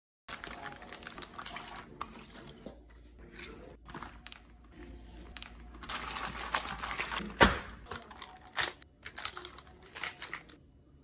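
Zip-top plastic bag crinkling and rustling in bursts as a whole chicken in marinade is handled inside it and the bag is pulled open, with a sharp snap about two thirds of the way through.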